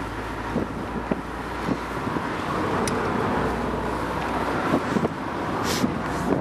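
Road and wind noise inside a moving car: a steady rumble and rush, with wind buffeting the microphone and a few light knocks.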